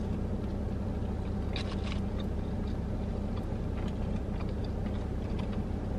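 Close-up chewing of a bite of chicken sandwich, with scattered soft crunches and mouth noises, over a steady low hum.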